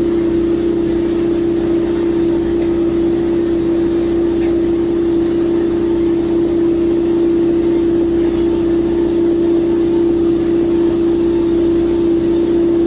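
Heavy construction machinery on a sheet-piling job running steadily, a constant loud hum with one strong steady tone over a low engine rumble.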